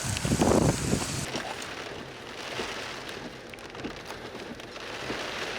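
Rain and gusting wind from a thunderstorm's rear flank downdraft, loud and blustery at first. About a second in the sound turns duller and steadier: rain pattering, heard from inside a vehicle.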